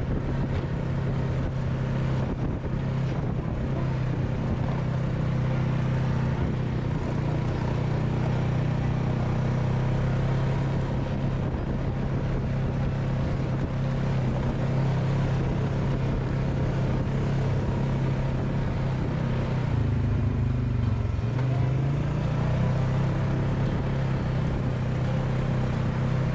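ATV engine running steadily while riding along a trail. The engine note dips briefly about twenty seconds in, then picks back up.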